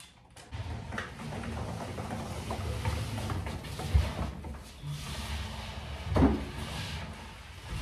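Bumps and knocks of a hooded salon hair dryer on its stand being moved into place, with two sharper thumps about four and six seconds in.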